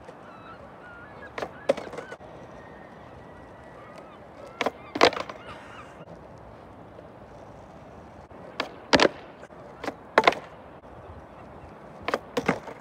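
Skateboard being popped and landing on asphalt during repeated kickflip attempts: five bursts of sharp wooden clacks as the tail snaps down and the deck and wheels slap back onto the ground, about every two to four seconds.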